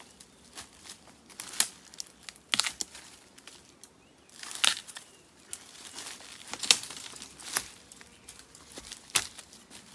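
Wild sweet bamboo shoots snapped off by hand at the base, about six sharp cracks a second or two apart, over the rustle of dry bamboo leaves.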